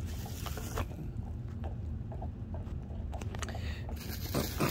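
Bubble-wrap packaging rustling and crinkling now and then as wrapped parts are handled in a cardboard box, over a steady low rumble; the crinkling gets busier near the end.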